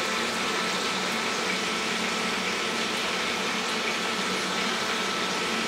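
Steady background hiss with a faint low hum and no distinct events.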